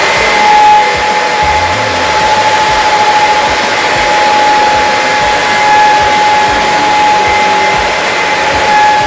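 APVPRO 33L industrial vacuum running steadily: a loud rush of air with a steady whine.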